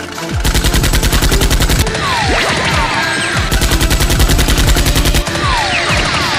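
Rapid automatic gunfire sound effects in long, fast bursts of evenly spaced shots, with a few falling whistle-like tones among them.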